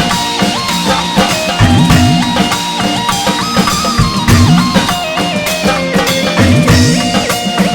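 Live instrumental music: a keyboard melody stepping over a drum kit's steady beat, with deep swooping bass notes every couple of seconds.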